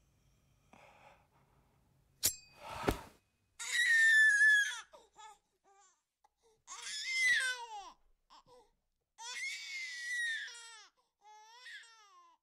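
A sharp crack, a short breathy rush, then a baby crying: three long wails that slide down in pitch and a shorter one near the end.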